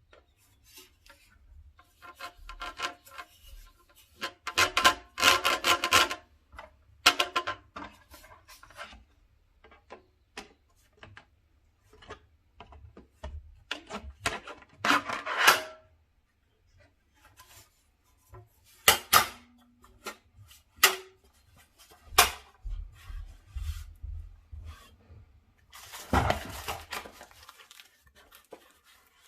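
Handling noises from unpacking an LED video light kit: parts and packaging rubbed, scraped and set down, with irregular clicks and knocks and a few longer rubbing stretches.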